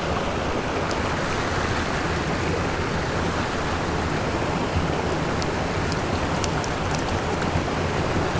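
Small mountain stream running over a shallow, rocky riffle: a steady rush of flowing water.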